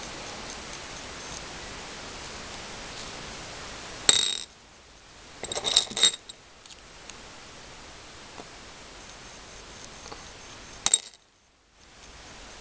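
Small glassy clinks as beads and a metal stick pin are handled over a clear dish: a sharp clink about four seconds in, a quick cluster of clinks around six seconds, and one more near the end, over a faint steady hiss.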